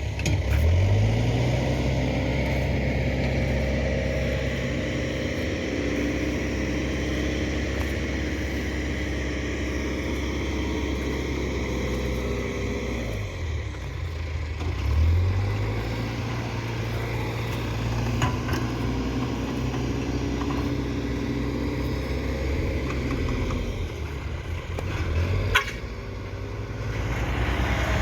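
Backhoe's diesel engine running steadily, revving up just after the start and again about halfway through. A single sharp knock comes near the end.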